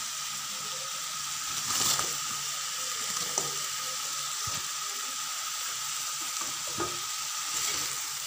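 Onions, green chillies and fried fish pieces sizzling in an aluminium pan, a steady frying hiss that swells briefly about two seconds in. A few light knocks come from the metal spoon stirring.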